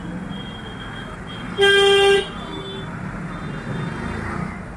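A vehicle horn sounds one short honk, about half a second long, about a second and a half in, over steady road traffic noise.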